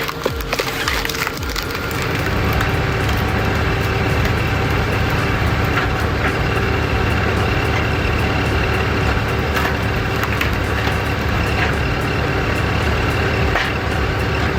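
Wood cracking and splintering under a powered wood-processing machine. Irregular clatter for the first couple of seconds gives way to the machine's steady hum, with scattered sharp cracks of wood breaking.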